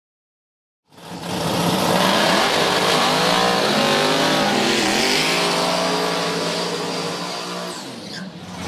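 Drag-race car engine revving hard through a burnout, its tyres spinning, starting about a second in. The revs dip and climb again several times, then ease off near the end.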